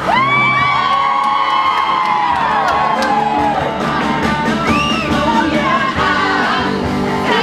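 A crowd of people singing together loudly over music. They hold a long note at the start that falls away about two and a half seconds in, followed by shorter sung phrases, whoops and yells.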